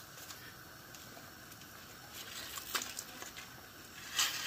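Soft rustles and a few light clicks from handling a packet of soup mix, with a short rustle about three seconds in and a louder one near the end, over a faint steady hiss.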